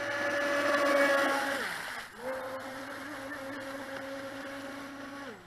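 Volantex Vector 70 RC racing boat's 1800 kV brushless motor whining steadily at full throttle on a speed pass. The whine falls in pitch and drops out briefly about two seconds in as the throttle comes off, picks up again, and falls away near the end.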